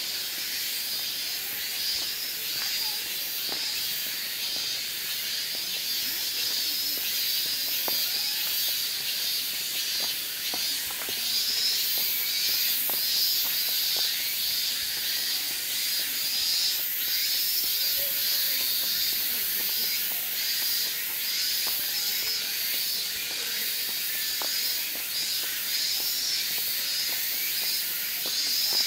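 Steady high-pitched insect chorus, typical of cicadas in summer woodland, swelling and fading a little in strength.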